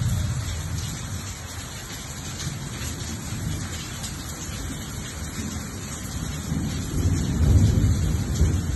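Heavy rain falling on floodwater that is streaming through a gateway: a steady hiss, with a low rumble that swells about seven seconds in.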